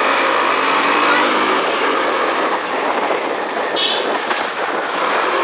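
Motorcycle running along the road, its engine buried in heavy wind and road noise on the microphone, with a short high-pitched beep about four seconds in.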